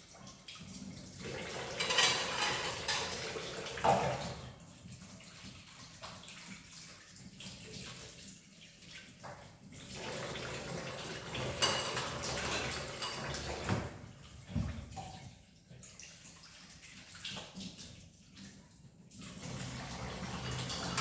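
Dishes being washed by hand at a kitchen sink: tap water running in spells, with clinks of plates and bowls being rinsed and set down.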